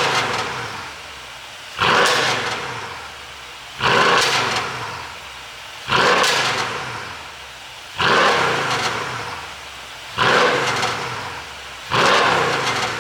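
Mercedes-AMG S63's twin-turbo V8 blipped six times, about every two seconds, each rev rising sharply and falling back over a second or so. On each fall the ECU pop tune adds exhaust pops and crackle on the overrun.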